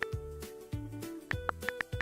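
Background music with a bass line and a melody, with sharp short ticks on top.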